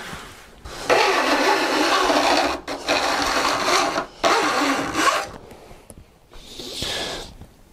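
A flat steel file run lengthwise along the tips of a Disston D8 4-TPI rip saw's teeth, jointing them to an even height. It rasps in three long strokes of one to two seconds each with short breaks, then a lighter stroke near the end.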